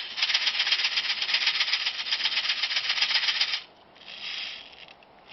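Fast, even clicking rattle from an airsoft gun, cutting off about three and a half seconds in; a fainter, brief rattle follows.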